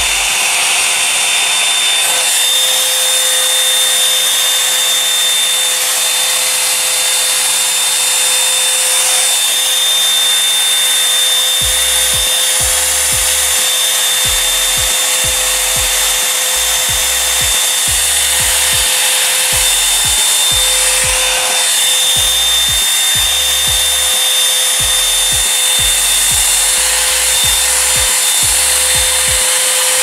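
Revlon One-Step Volumizer hot-air brush running steadily: a loud rush of blown air with a constant high-pitched motor whine.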